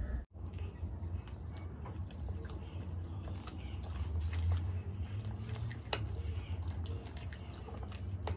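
Eating sounds: methi parathas being torn by hand and dipped into aloo sabji, with chewing and small mouth clicks and crackles, over a steady low hum.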